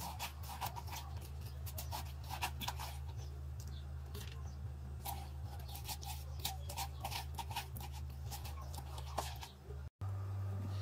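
Metal spoon scraping and scooping watermelon flesh from a halved rind: a run of short, crisp scrapes over a steady low hum. The sound drops out for a moment near the end, and the hum changes after it.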